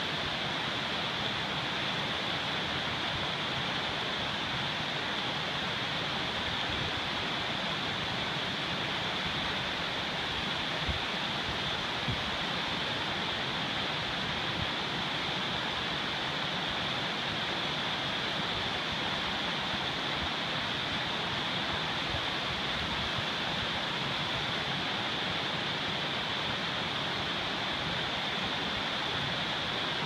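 River water rushing steadily over a low stone weir and through rapids.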